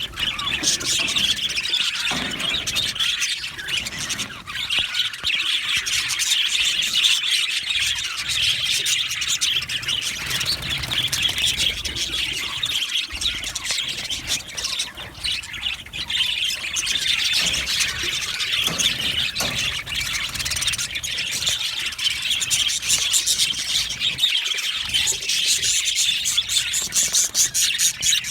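A colony of budgerigars chattering and chirping together, a continuous dense warble of many birds at once.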